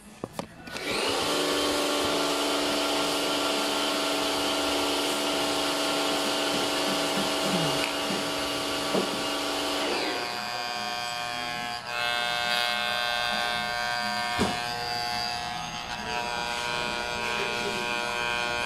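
Electric hair clippers switched on about a second in, then buzzing steadily. About ten seconds in the buzz changes tone. There are a couple of brief knocks from handling.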